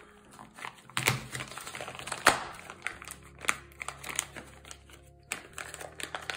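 Sealed plastic packaging bag crinkling and crackling as it is pulled open by hand, in irregular bursts, with the sharpest crackles about a second in and a little over two seconds in.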